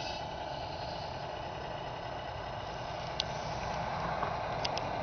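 Radio-controlled model Scania R620 tipper truck running steadily, with a few light clicks about three and four and a half seconds in.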